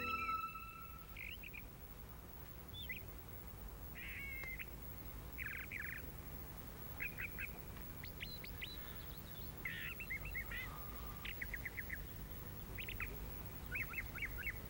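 Small birds chirping in short, scattered calls and quick trills, faint against a low steady hum. A music cue dies away in the first second.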